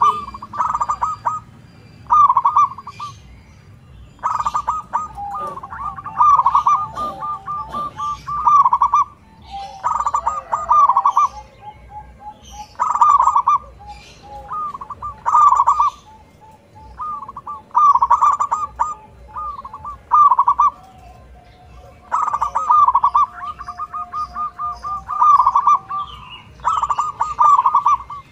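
Zebra dove (perkutut) singing its staccato cooing song, a phrase of quick, closely spaced coo notes about every two seconds. Quieter coo notes run between the phrases.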